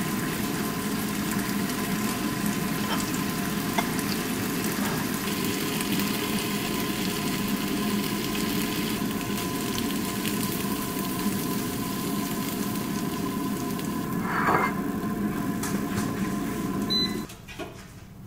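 Steady fan noise from a running kitchen appliance, with a faint even hum, cutting off suddenly near the end. There is a brief clink about two-thirds of the way through.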